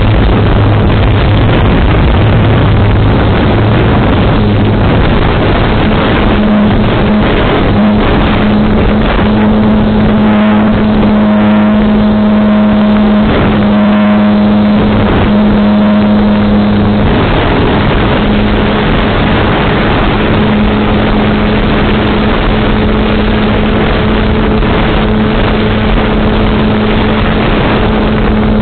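Electric motor and propeller of a Volantex Phoenix S RC glider running steadily under power, a constant droning hum with a loud rushing of wind over it.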